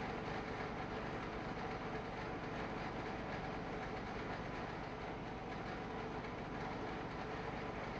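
A steady mechanical hum that holds level and pitch throughout.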